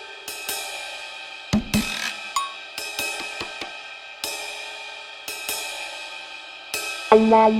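Background music with repeated cymbal crashes that ring out over a drum beat, and sustained melodic notes joining near the end.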